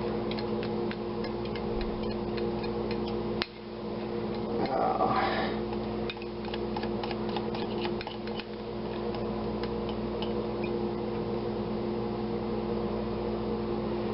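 Steady mechanical hum, like a fan, with scattered light ticks and clicks, a sharper click about three and a half seconds in, and a brief louder sound about five seconds in.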